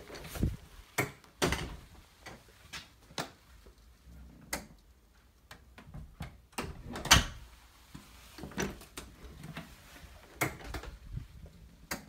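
A door closing under a preloaded Universal Hardware UH4061 overhead door closer and latching shut. There are scattered clicks and knocks, the loudest about seven seconds in.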